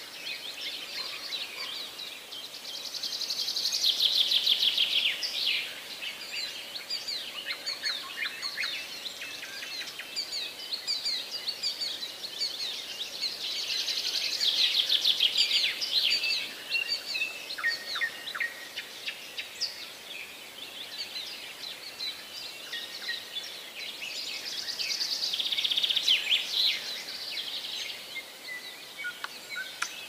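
Songbirds singing. One bird delivers a loud, rapid trilling phrase three times, about every ten seconds, and shorter chirps from other birds fill the gaps.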